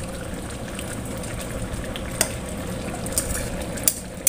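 Chicken rendang with potatoes and carrots simmering in its coconut-milk sauce in a wide metal wok, a steady bubbling as the sauce cooks down. In the second half a wooden spatula stirs it, clicking against the wok a few times.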